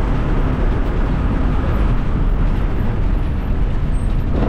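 Steady engine and road noise of a moving TNSTC bus, heard from inside the cabin.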